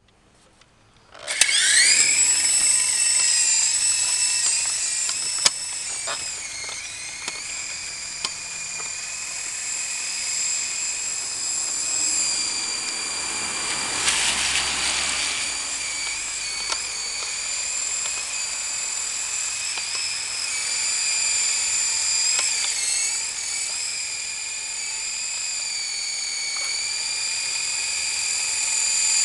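Syma S033G toy coaxial RC helicopter's electric motors and rotors spinning up suddenly about a second in, then a steady high-pitched whine as it flies. The pitch dips and recovers a few times with the throttle.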